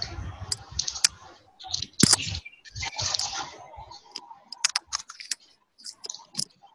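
Irregular clicks mixed with patches of rustling noise, heard through a video-call microphone: typical of keyboard or mouse handling and movement near a participant's mic.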